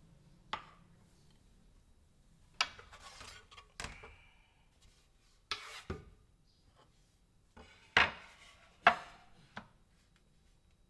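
Kitchen bowls, dishes and utensils being handled and set down on a counter: a string of separate clinks and knocks, some with a short rattle, the loudest two coming about a second apart late on.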